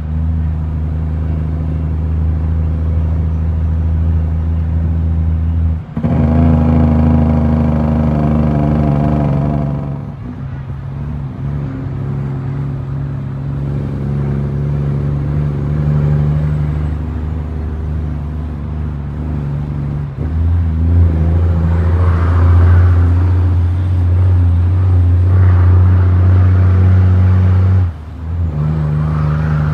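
Heavy diesel dump truck engine heard from inside its cab while driving, running loud and steady under load. The engine note breaks off briefly a few times and picks up again at a new pitch as gears are shifted.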